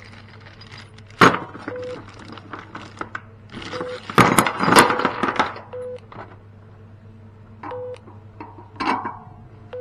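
Metal clinks and rattles from a spanner working the satellite dish's mounting bolts as the elevation is locked, with a sharp knock about a second in and a longer clattering stretch in the middle. A short electronic beep repeats about every two seconds.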